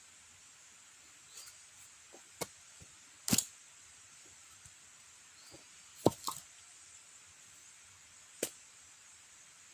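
A handful of sharp, scattered knocks and clicks, irregularly spaced over a faint steady hiss; the loudest is a quick double knock about three seconds in, with another sharp one about six seconds in.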